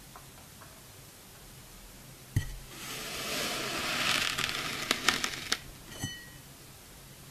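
A clear round mold tapping down onto packed kinetic sand a little over two seconds in. A grainy crunching follows for about three seconds as it presses into the sand, with a few sharp crackles near the end and one more light tap about a second later.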